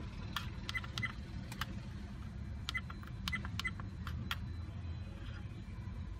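Buttons on an APEMAN C550 dash camera being pressed, about eight times at irregular intervals while stepping through its settings menu; each press gives a short click with a brief high beep.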